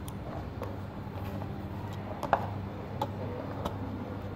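Small irregular clicks and ticks of wires and a plastic 8-pin relay socket being handled as wires are fitted into its screw terminals, over a steady low hum. The sharpest click comes a little past halfway.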